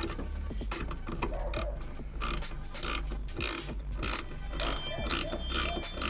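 Ratcheting wrench tightening a 13 mm nut on a light-mount bolt. It clicks in short strokes about every half second as it is swung back and forth.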